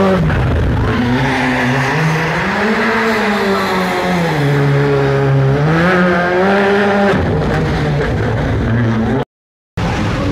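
World Rally car's turbocharged engine revving up and down through the gears, its pitch rising and falling several times, over the steady hiss of rain. The engine fades about seven seconds in, and the sound drops out briefly near the end before another engine comes in.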